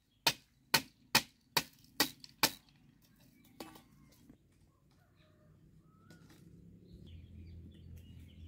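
Machete chopping bamboo: six quick, sharp strikes about every 0.4 s, then a lighter knock as a bamboo strip is handled. A low steady hum builds in the second half.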